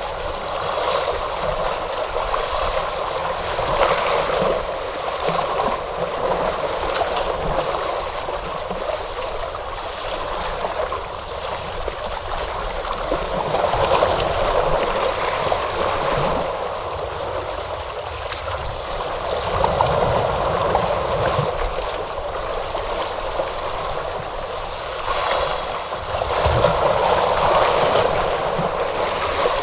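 Ocean surf: a continuous rush of breaking and washing waves that swells and eases every several seconds.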